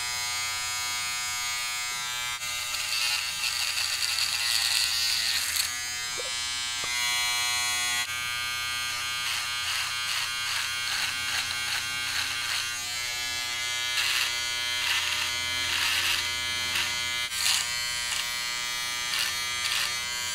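Taurus mini portable electric foil shaver buzzing steadily at its single, fairly strong speed while it is run over facial stubble. A rasp of cutting hairs comes and goes with each stroke of the head over the skin.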